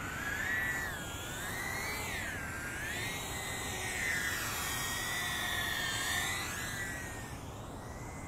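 DYS Elf brushless micro FPV quadcopter (tiny whoop) in flight, its motors giving a high whine that rises and falls in pitch as the throttle changes.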